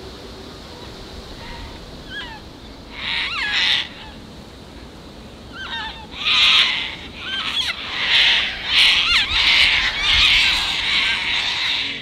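Sulphur-crested cockatoos screeching: harsh, raspy calls, one burst about three seconds in, then loud screeches repeated over and over from about six seconds on.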